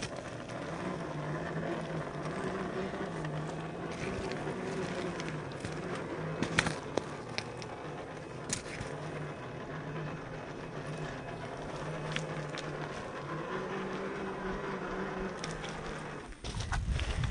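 Traxxas TRX4 RC crawler's electric motor and geared drivetrain humming as it crawls, the pitch stepping up and down with the throttle, with scattered sharp clicks of the tyres and chassis on ice and rock. Near the end the hum stops and a deep rumble takes over.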